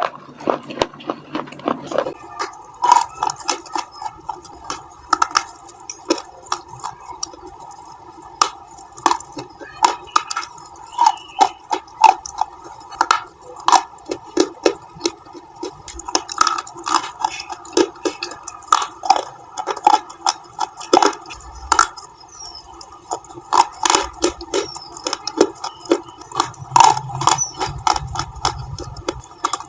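Crunchy bites into colored KitKat bars: an irregular run of sharp crunches, one to several a second, with chewing between them.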